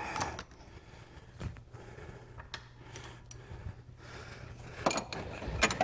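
Scattered light clicks and metal clinks of hand tools working on the mounting nuts of a carburetor, with a cluster of sharper clinks near the end, over a faint steady hum.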